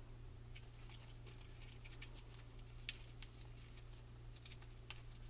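Faint, scattered crackling and rustling of fingers pulling apart the papery silk wall of a Cecropia moth cocoon, with one sharper tick about three seconds in, over a low steady hum.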